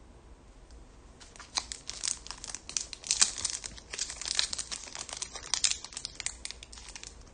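A 2020 Panini Diamond Kings trading-card pack wrapper being torn open and crinkled by hand: dense, rapid crackling that starts about a second in and is loudest in the middle.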